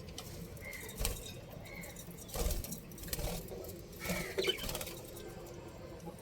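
Budgies giving a few short chirps, with several knocks and scuffles in between.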